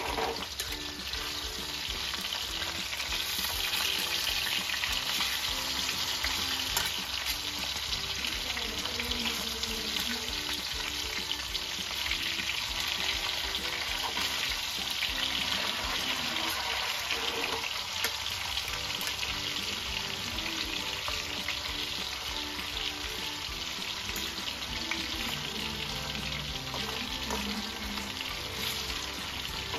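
Marinated chicken pieces shallow-frying in hot oil in a wide pan, a steady sizzle with now and then the scrape of a fork turning the pieces. Soft music plays faintly underneath.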